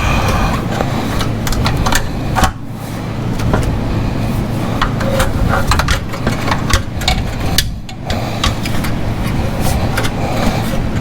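Scattered metallic clinks and knocks of hands and tools working on exhaust pipes and springs, over a steady low hum.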